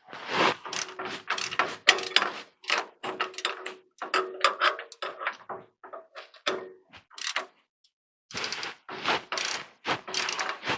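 A 3/8-inch drive ratchet clicking in quick runs of strokes as it tightens the nut on the lower mount of a rear shock absorber, with a short pause about three-quarters of the way through.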